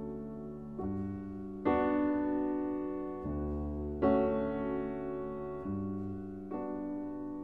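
Background music on slow solo piano: chords struck every second or so and left to ring out and fade.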